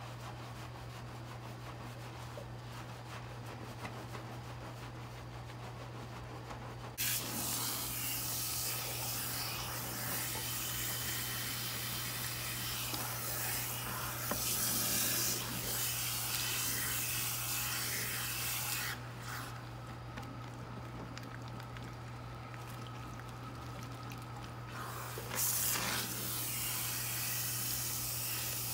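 Hands scrubbing shampoo lather through wet hair, then a shampoo-bowl hand sprayer hissing as it rinses the hair and splashes into the basin. The spray starts suddenly about seven seconds in, cuts out about two-thirds of the way through, and comes back on near the end, over a low steady hum.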